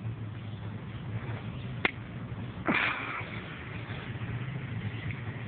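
A plastic wiffle ball bat strikes a wiffle ball once with a single sharp, light crack about two seconds in. Under a second later comes a short, louder rush of noise, over a steady low hum.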